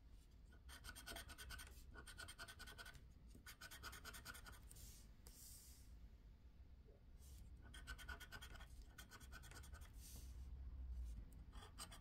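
Faint scratching of the coating off a scratch-off lottery card with a scraper, in several bursts of quick strokes with short pauses between them.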